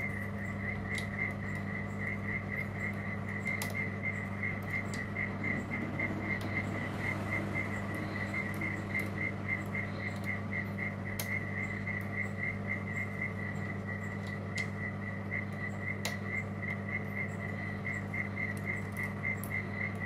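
Lishi LW4 2-in-1 pick working the pin tumblers of a Lockwood lock held in a vise: scattered faint, sharp metallic clicks as the pins are lifted and set. Under it run a steady low hum and a regular high chirp about three times a second.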